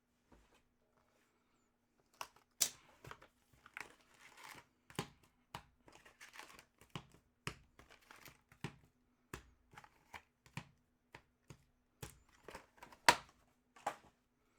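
Hockey card packs being opened by hand: the wrappers crinkle and tear in a string of short, sharp rustles. It starts about two seconds in and is loudest about 13 seconds in.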